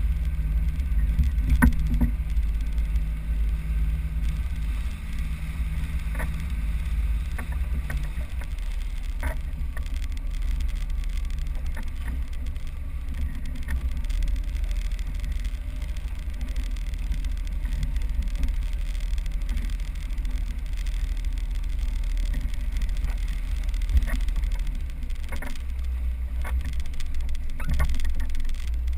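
Inflatable boat under way on choppy water: a steady low rumble of its motor and wind on the microphone, with short splashes of water against the hull.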